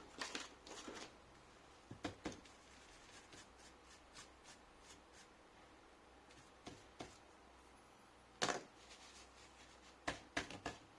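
Scattered faint clicks, taps and rustles of hands handling laptop parts and tools during disassembly, with a sharper knock about eight and a half seconds in and a few more clicks near the end.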